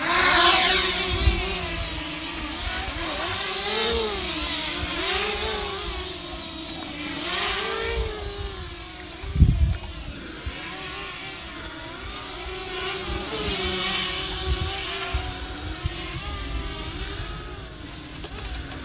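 Hubsan X4 micro quadcopter's propellers buzzing, the pitch wavering up and down as the throttle changes. Low dull thumps come through now and then, the loudest about halfway through.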